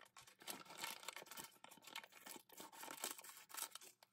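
Scissors cutting open a plastic foil minifigure bag: a run of irregular crisp snips and crinkling of the foil.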